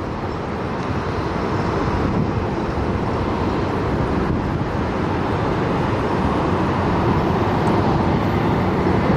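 Jet engine noise of an arriving Airbus A319 airliner, a steady rushing sound that slowly grows louder.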